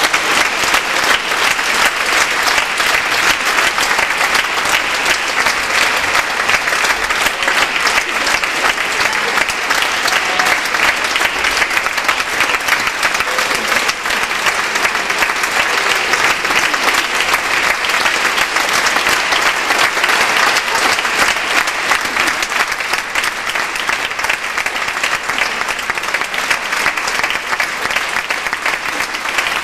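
A large theatre audience applauding, a dense, continuous clapping that holds steady throughout.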